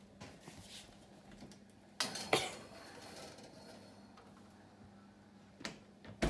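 Built-in oven door pulled open with a clattering clunk about two seconds in, a foil-covered dish slid onto the oven rack, and the door pushed shut with a knock at the end, over a faint steady hum.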